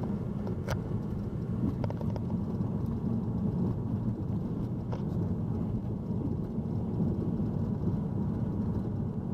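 Car driving on a sealed road, heard from inside the cabin: a steady low rumble of road and engine noise, with a few light clicks.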